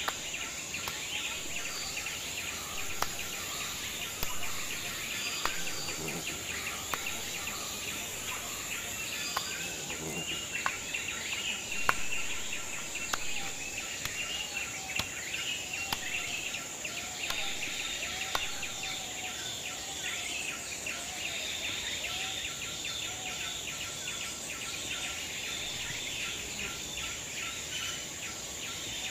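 Outdoor ambience: a steady high insect drone, with birds calling on and off and a few sharp clicks and knocks.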